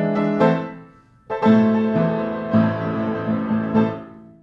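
Piano music: a phrase of chords fades out about a second in, then a new phrase begins and dies away near the end.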